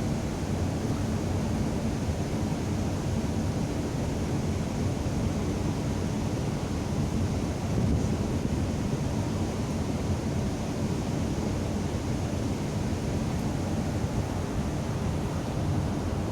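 Steady low rumble of a passenger ship under way, mixed with wind buffeting the microphone and the rush of the sea.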